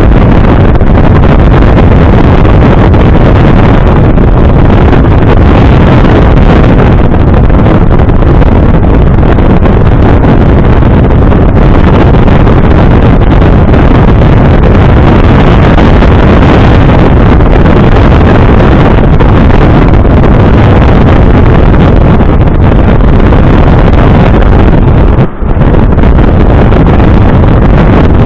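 Smart Roadster driving at speed: heavy, steady wind noise on the microphone over the car's engine and road noise, with one brief dip about 25 seconds in.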